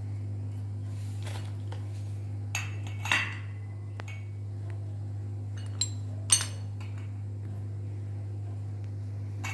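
A few light metallic taps and clinks as a ball bearing is worked onto a ceiling fan's shaft, the sharpest about six seconds in, over a steady low hum.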